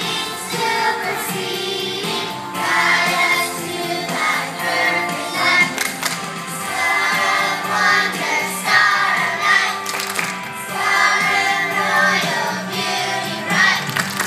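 Children's choir singing together with instrumental accompaniment.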